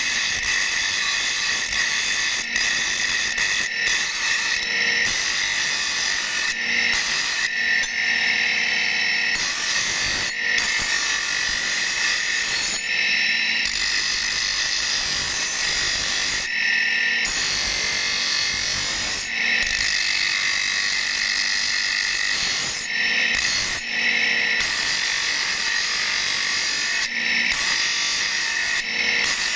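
Bench grinder wheel grinding a steel axe blade: a steady high-pitched grinding whine, broken by brief gaps every few seconds where the upper part of the sound drops out.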